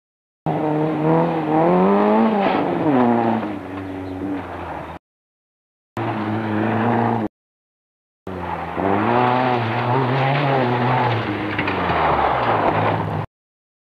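Rally car engines revving hard on a dirt stage, the engine note climbing and then dropping sharply as the cars pass, in three short clips each cut off abruptly by a brief silence.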